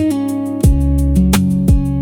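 Background music: guitar over a bass line with a steady drum beat.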